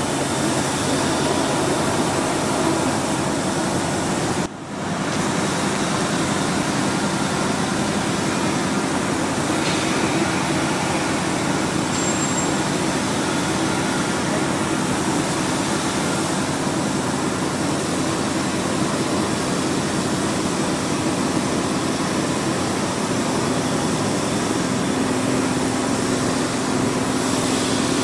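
Steady machine noise of a metal-working factory floor, an even hiss and hum with a low steady tone growing near the end, briefly dropping out about four and a half seconds in.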